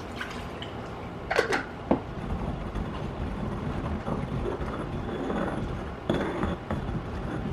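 Stone pestle grinding and stirring in a volcanic stone molcajete, mixing citrus juice into ground garlic and spices: a continuous rough scraping of stone on stone, after a couple of sharp knocks about a second and a half in.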